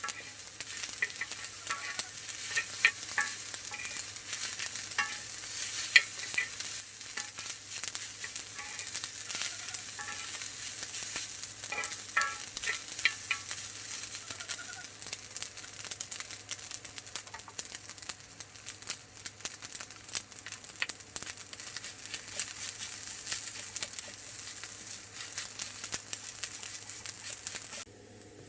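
Food sizzling and crackling in a hot pan, with many small clicks and pops; it cuts off suddenly near the end.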